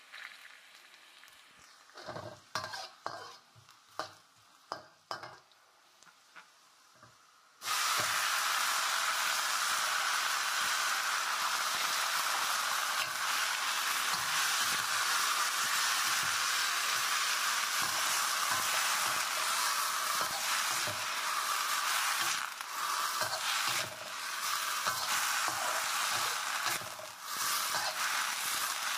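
A metal spatula scrapes and taps a steel wok with little frying heard. About seven or eight seconds in, a loud steady sizzle starts abruptly as mushrooms and vegetables stir-fry in hot oil, with the spatula scraping and knocking against the wok throughout.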